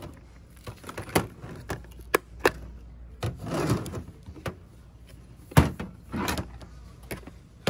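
A string of knocks and clicks as box pencil cases are handled, opened and shut. The loudest is a sharp knock about five and a half seconds in.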